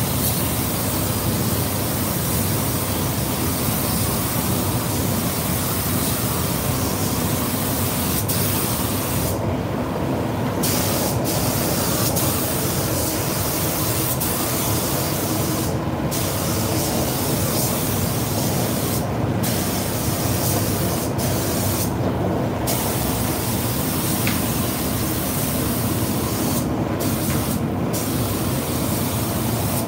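Gravity-feed spray gun hissing steadily as compressed air atomises paint onto a car body. The high hiss breaks off briefly about six times as the gun pauses, over a steady low rumble.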